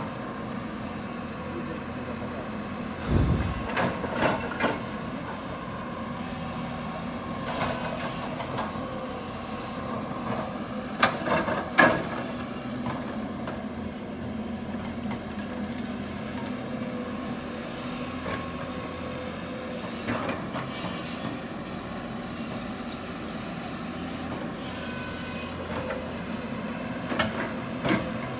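Hydraulic excavator's diesel engine running steadily under load while it digs, with scattered clanks and knocks from the bucket and tracks working soil and rock, the loudest a pair about halfway through.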